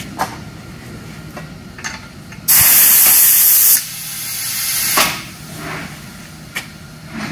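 Compressed air hissing loudly from an air hose connection on a pneumatic machine for about a second, cutting off sharply, then a softer hiss that swells for another second. A few light clicks come before and after.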